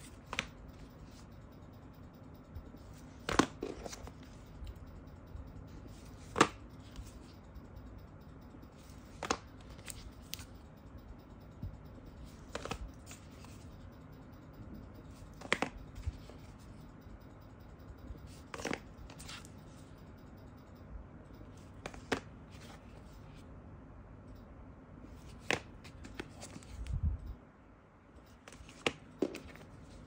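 Sharp, short clicks repeating about every three seconds over a low steady background hum.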